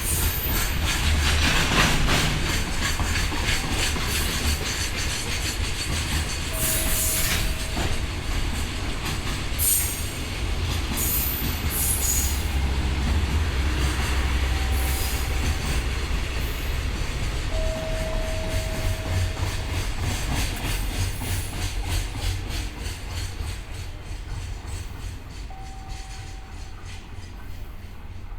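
Freight train's container wagons rolling past at speed. A steady rumble runs under repeated wheel clicks, with several short, high wheel squeals along the way. The sound eases off slightly near the end.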